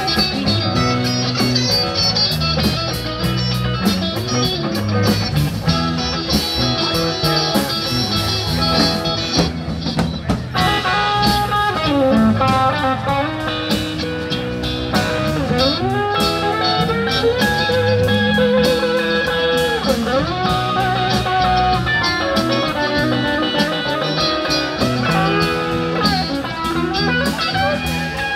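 Live rock band playing an instrumental break: an electric guitar plays a lead line with bent, sliding notes over bass and drum kit.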